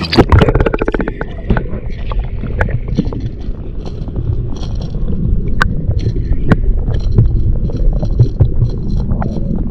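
Sound picked up underwater beside a kayak: a muffled low rumble of moving water with scattered sharp clicks and knocks, and a quick run of rapid clicks in the first second as the camera goes under.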